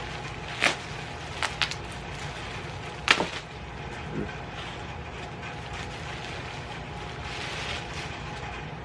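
Packaging being handled as a t-shirt is unwrapped: a few sharp crackles in the first few seconds, over a steady background hum.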